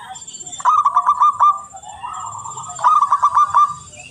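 Zebra dove (perkutut) cooing: two runs of its quick staccato coos, each about a second long, with softer cooing in between.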